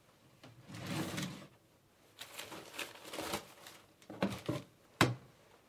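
A wooden drawer being pulled open, then rustling and handling noises as a hand reaches in among crumpled newspaper, ending in one sharp click about five seconds in, the loudest sound.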